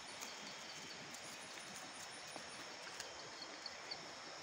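Faint night ambience: insects chirping high and softly over a steady low hiss, with a few faint ticks.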